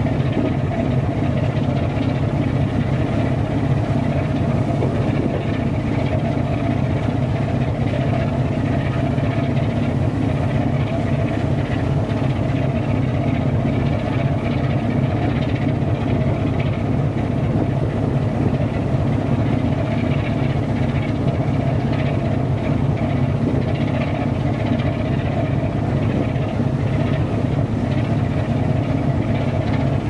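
Steady low drone of a boat's engine running at a constant speed, unchanging throughout.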